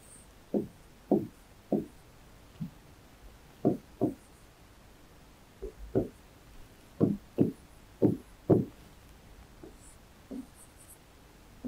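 A pen knocking against a writing board as lines and zigzags are drawn: about fifteen short, dull knocks at uneven spacing, several coming in quick pairs.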